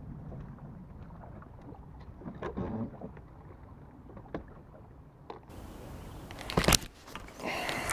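Water and light wind around a small fishing boat, a low steady rumble with scattered small clicks and knocks of fishing tackle being handled; one louder sharp knock about six and a half seconds in.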